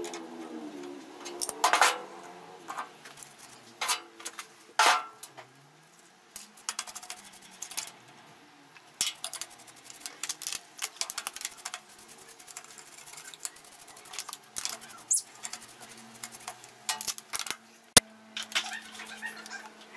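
Stiff paintbrush scrubbing and scraping dirt off the metal body of an old Elgin sewing machine, in irregular strokes with occasional metal clinks. A single sharp click comes near the end.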